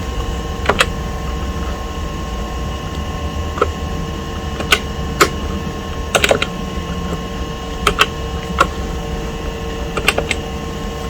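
Scattered single key presses on a Compaq SLT/286 laptop keyboard, sharp clicks at uneven gaps, some in quick pairs, over a steady electrical hum with a faint whine.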